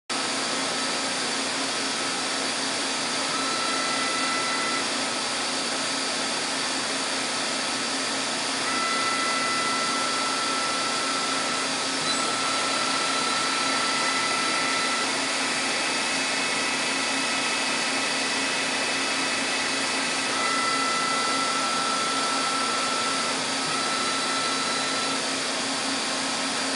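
Emco PC Turn 55 CNC lathe spindle running in several spells of a few seconds each. Each spell is a steady high whine over a constant loud rushing noise.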